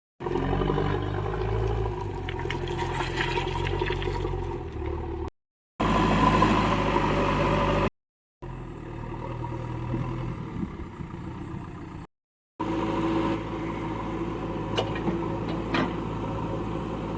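JCB 3DX backhoe loader's diesel engine running, its pitch and loudness shifting between several short segments broken by brief silences, with a few sharp clicks near the end.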